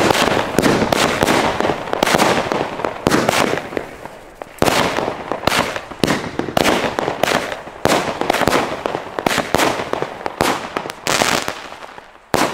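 Katan Spaceman small consumer fireworks battery firing: a fast, continuous run of shots launching and bursting with sharp pops and bangs. There is a brief lull about four seconds in, and it fades just before the end.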